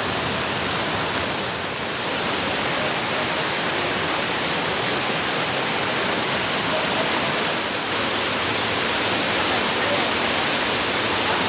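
Waterfall cascade rushing strongly, a steady, loud wash of falling water.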